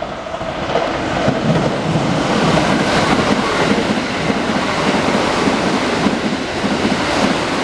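Keikyu electric train passing close by on the near platform track at speed: loud steady rolling noise of wheels on rail that builds over the first second or so, then holds.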